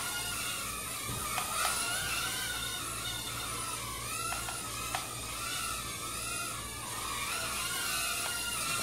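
JJRC H20 nano hexacopter's tiny motors and propellers whining in flight, the pitch wavering up and down continually as the throttle changes.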